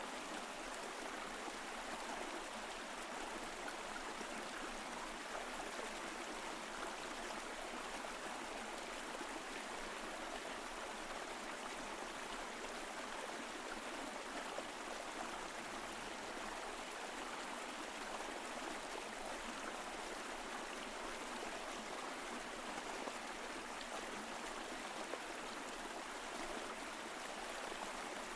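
Mountain stream flowing steadily over rocks, an even rushing and gurgling of water.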